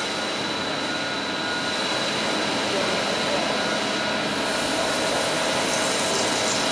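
Fermat WFT 13 CNC table-type horizontal boring machine making a boring cut with through-spindle coolant: a steady machining noise with a thin high whine, its hiss growing brighter about four seconds in.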